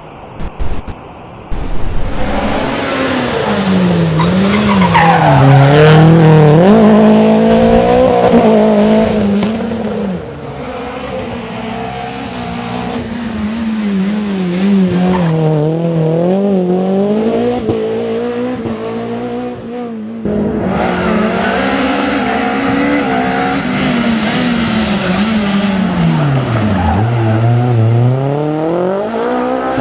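Renault Clio Williams rally car's 2.0-litre four-cylinder engine revving hard, its pitch climbing and dropping with each gear change, with tyre squeal. Several passes are cut together, with abrupt changes about ten and twenty seconds in.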